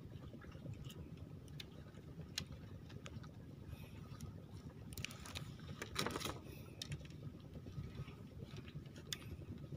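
Light clicks and ticks of fishing line, hook and sinker being handled on a bamboo deck, with a brief louder rustle about six seconds in, over a low steady background rumble.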